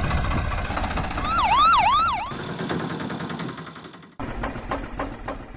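A siren giving three quick rising-and-falling wails over a running engine, about a second in. The engine sound fades after it, and a rougher noise with scattered clicks comes in suddenly near the end.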